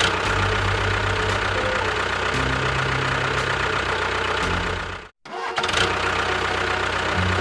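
Engine running steadily. It breaks off sharply about five seconds in, then picks up again.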